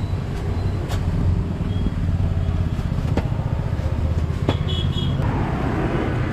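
Roadside traffic: a steady low rumble of vehicles passing, with a few sharp clicks or knocks.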